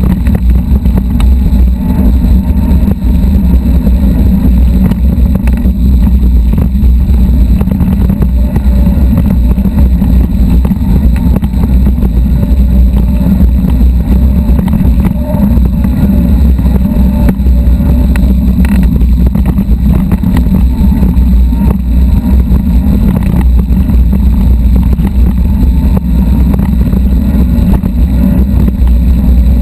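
Loud, steady wind rumble on the microphone of a camera riding on a mountain bike, mixed with the rattle of tyres and frame over a rough gravel trail.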